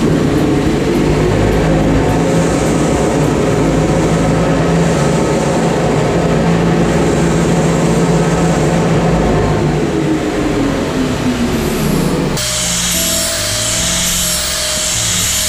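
Abrasive cut-off saw cutting steel, its motor running steadily and then winding down in a falling whine. About twelve seconds in this gives way to a hand-held angle grinder grinding a welded steel frame: a hiss with a steady, higher whine.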